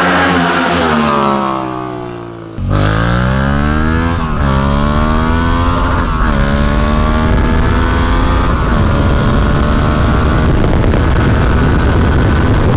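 Yamaha MT-07 parallel-twin engine running through an Akrapovic full carbon exhaust with its dB killer fitted. The engine note falls away at first, then after an abrupt cut the revs climb and drop three times before holding steadier.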